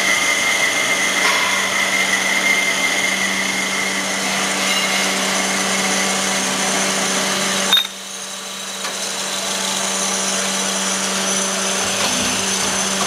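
ITL LMGA 200 automatic band saw running and cutting through a solid round steel bar, a steady machine hum with several fixed tones. About eight seconds in there is a short knock as a cut-off disc falls, and the sound drops for a moment before building back up.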